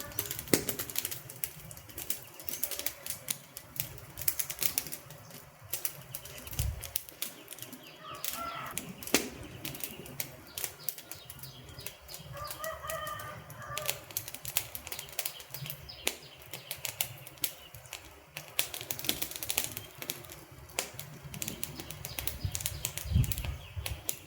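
Campfire crackling with many sharp pops and snaps. A bird calls briefly twice, about a third of the way in and just past halfway.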